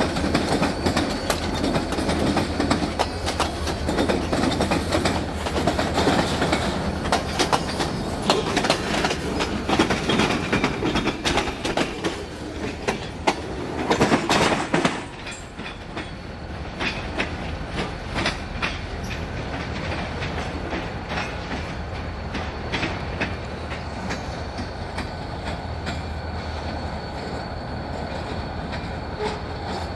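Diesel freight train rolling past close by, its wheels clicking and knocking over the rail joints under a steady low engine rumble. About 15 seconds in, the sound changes abruptly to a quieter, steadier rumble of the train further off, with occasional clicks.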